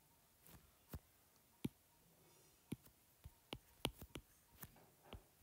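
Stylus tip tapping on a tablet's glass screen during handwriting: about ten faint, sharp clicks at irregular intervals.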